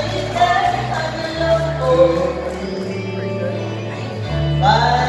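A woman singing a country cover song into a microphone with a live band: guitars and a bass guitar playing a steady bass line under her voice.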